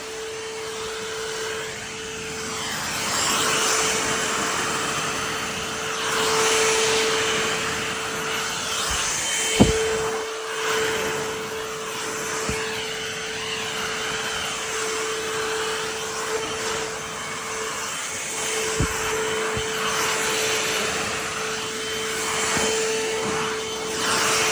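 A Bissell Pet Hair Eraser lithium-ion cordless hand vacuum running, with a steady motor whine and a suction hiss that swells and fades as the nozzle is worked over the fabric. There is a sharp click about ten seconds in, with fainter ones later.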